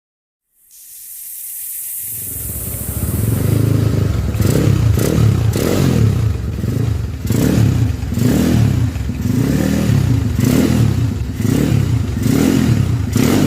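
Motorcycle engine running and being revved, its pitch rising and falling over and over after fading in over the first couple of seconds.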